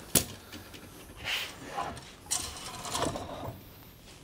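Copper tubing of a coiled wort chiller being handled against a steel bench and a coiling drum. A sharp clink comes just after the start, then scraping and rubbing of the copper pipe twice.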